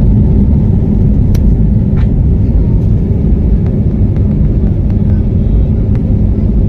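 Loud, steady low rumble of a passenger plane heard from inside the cabin, with a few faint clicks and rattles.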